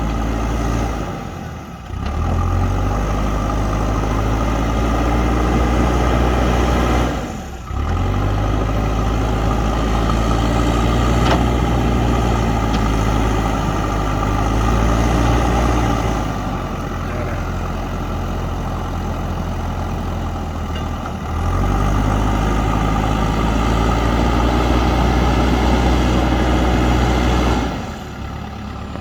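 Diesel engine of a JCB backhoe loader running hard while the machine pushes against a tree root, its note rising and easing as the load changes. The sound drops out briefly about two seconds in, again about seven seconds in and near the end, and runs quieter for a few seconds in the middle.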